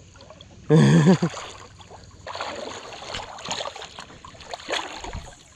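A short vocal sound about a second in, then river water splashing and sloshing in quick irregular strokes for about three seconds.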